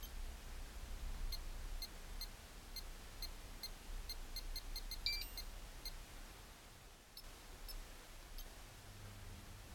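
Graupner MC-20 HoTT transmitter giving short high key beeps as its menu is scrolled step by step with the SET touch pad. There is a quick irregular run of a dozen or so from about a second in, a longer two-pitch beep about five seconds in, then a few sparse beeps near the end, over a low steady hum.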